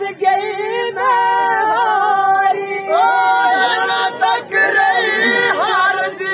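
Men singing a Dogri folk song in long held, ornamented notes, with more than one voice overlapping in the second half.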